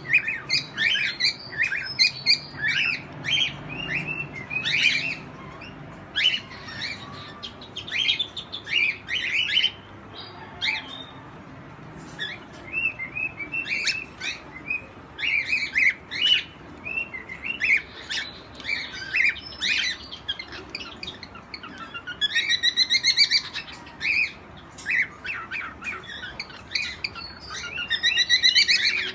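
Aviary birds chirping and twittering in many short, quick calls, with a fast rattling trill about 22 seconds in and again near the end.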